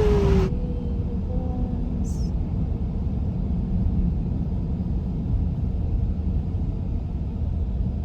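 Steady low rumble that fades out just after the end.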